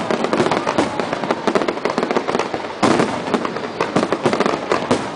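Aerial fireworks display: a dense, continuous crackle of many small bursts, with a louder bang a little before the three-second mark.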